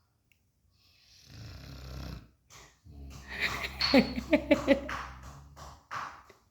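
Snoring: a softer breathy snore about a second in, then a louder snore with a fast fluttering rattle in the middle, and another breath near the end.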